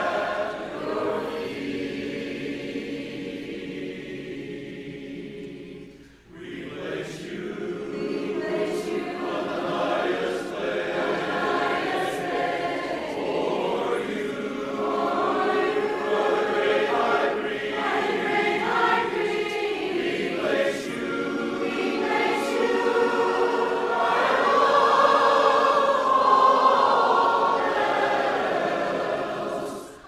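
Choir singing, with a brief break about six seconds in before the voices come back in.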